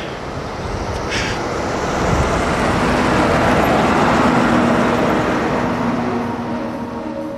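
A broad rushing noise, like traffic or a vehicle going by, that swells to its loudest in the middle and then fades. Faint music tones come in near the end.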